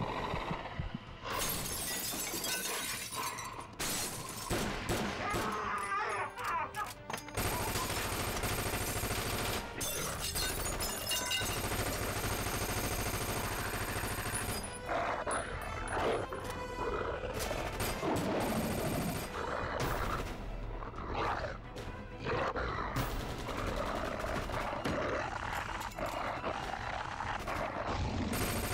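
Film soundtrack of a gunfight: a music score under bursts of rapid gunfire, with the shots most frequent in the first several seconds.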